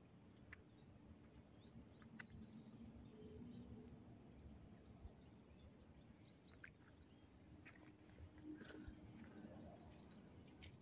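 Near silence: faint outdoor ambience with a few short, faint bird chirps and scattered small clicks.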